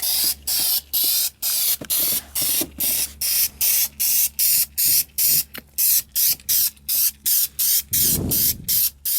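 Aerosol spray can of Duplicolor high-temperature engine enamel spraying in short, rapid hissing bursts, about three a second, laying on a light, spotty first coat.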